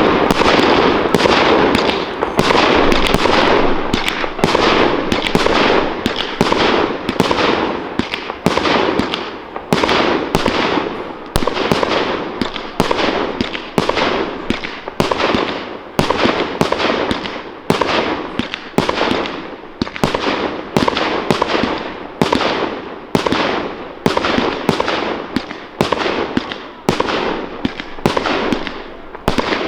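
Fireworks display: a rapid run of bursting shots, at first overlapping into a dense continuous crackle and rumble, then settling into separate loud bangs about once a second, each fading out quickly.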